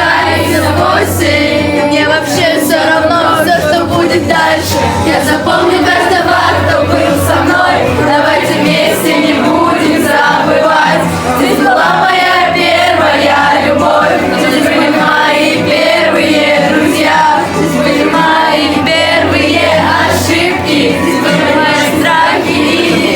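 A song sung by many voices together, loud and continuous, with sharp beats recurring through it.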